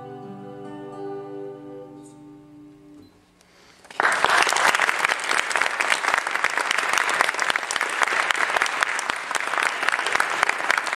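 The last note of an acoustic guitar and voice song rings out and fades over about three seconds, then after a brief hush an audience breaks into loud, steady applause about four seconds in.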